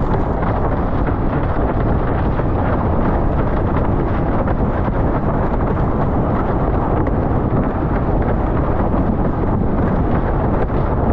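Steady, loud wind noise buffeting a GoPro Hero 10's microphone, with water rushing past a Starboard iSonic 77 slalom windsurf board sailing fast over chop.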